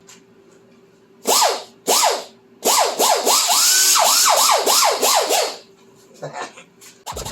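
Air tool run in short trigger bursts, its pitch rising and falling with each pull over a hiss of exhaust air, as it works fasteners out of a car's rear hatch. Background music starts near the end.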